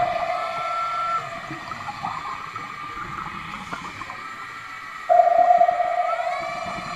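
Electric drive of a 1/144 Soryu RC model submarine whining, heard through the water. A steady whine stops about a second in and comes back abruptly about five seconds in, loudest there, while a set of higher tones rises in pitch near the end as the motor speeds up.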